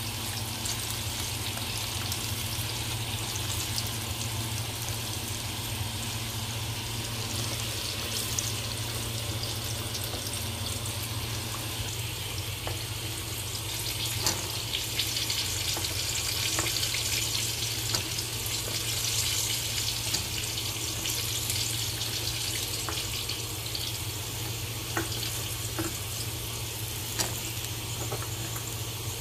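Battered chicken pieces deep-frying in hot oil: a steady sizzle, louder for a stretch about halfway through, with a few light clicks, over a low steady hum.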